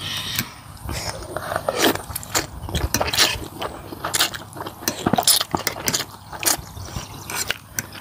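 Noodle soup being eaten close to the microphone: noodles slurped and chewed, a quick irregular run of wet clicks and smacks.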